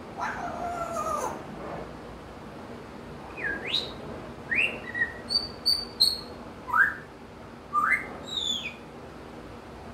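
African grey parrot calling: a drawn-out lower call in the first second, then a string of short, loud whistles and chirps, mostly quick upward sweeps with a few high falling notes, in the manner of wild birdsong.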